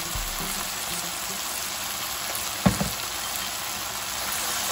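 Chicken pieces with sliced onion and chopped tomato sizzling in an oiled non-stick frying pan, a steady hiss, with a single knock about two and a half seconds in.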